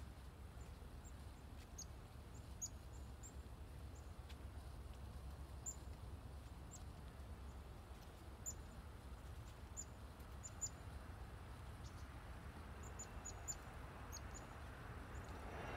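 Chickadees giving short, high, thin call notes, scattered every second or so with a quick run of several near the end, over a low steady rumble.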